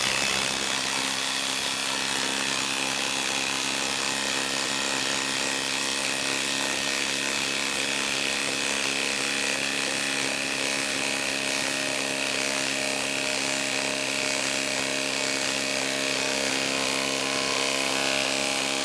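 Ryobi P262 18V brushless mid-range impact wrench, on speed 3 in forward, hammering steadily without a break as it drives a long lag screw into a solid wood log round.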